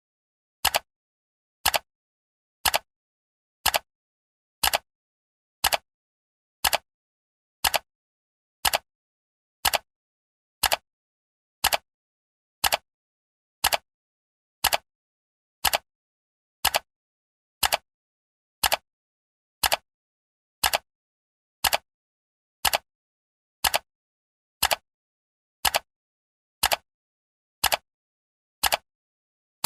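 Countdown timer's clock-tick sound effect: one short, sharp tick every second, evenly spaced, with silence in between.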